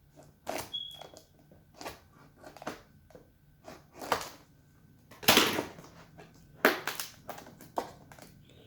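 Cardboard box being handled while packing tape is worked off one end: a string of irregular crackles, scrapes and knocks, the loudest about halfway through and again near seven seconds.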